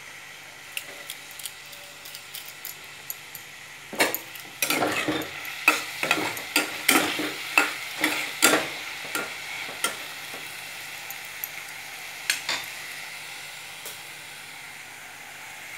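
Chopped onion, capsicum and green peas sizzling in oil in a stainless steel kadai. About four seconds in, a burst of stirring begins: a utensil scrapes and clinks against the pan, most densely for around six seconds, with a couple more scrapes near the end.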